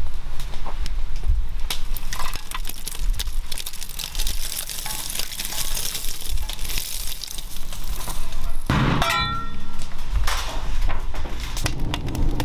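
Glowing oak coals being shovelled into a brick whole-hog pit: coals clinking and crackling against the steel shovel, with a hiss as they pour in. A short falling tone sounds about nine seconds in.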